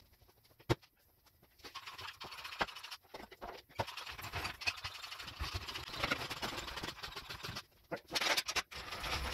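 A person handling tools and moving about in a garage: irregular clicks, clinks and knocks over rustling and shuffling, with a single sharp click under a second in.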